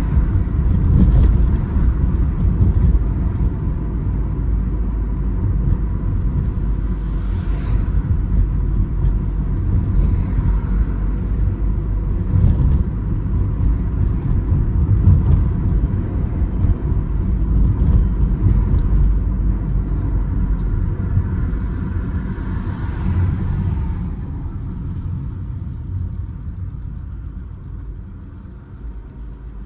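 Opel Astra H driving, with a steady low rumble of engine and road noise. The rumble fades down near the end.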